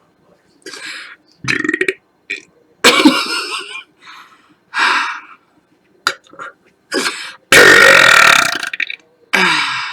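A woman burping over and over, a string of separate belches with short pauses between. The loudest and longest, about a second and a half, comes near the end, followed by a shorter one that drops in pitch.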